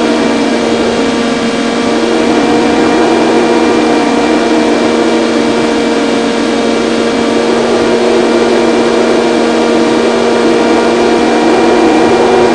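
Electric motor and propeller of a LiPo-powered FPV model plane running steadily in flight, a constant buzzing drone, with wind rushing over the plane's on-board microphone.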